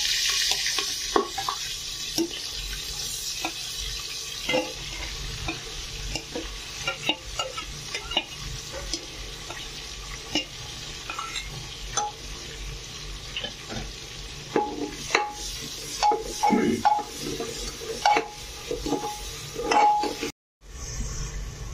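Ground onion paste going into hot oil in an aluminium pressure cooker with a loud sizzle that settles into steady frying. A steel ladle scrapes and knocks against the pot and plate many times while the onion is stirred. The sound cuts out for a moment near the end.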